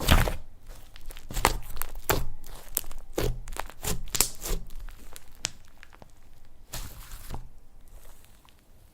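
Slime being squished and stretched by hand, giving irregular crackles and pops.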